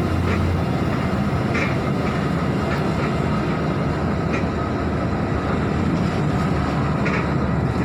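Mercedes-Benz OH 1526 bus driving along: a steady rumble of engine and road noise, with a few faint clicks.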